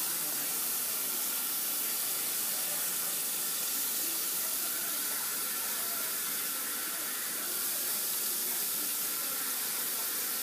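Kitchen faucet running steadily, the stream splashing onto a small glass held under it and into a stainless steel sink.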